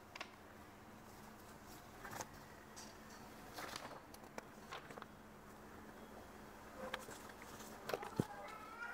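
Faint rustling of loose paper sheets being leafed through and handled, a few soft rustles and clicks spread out with quiet between them.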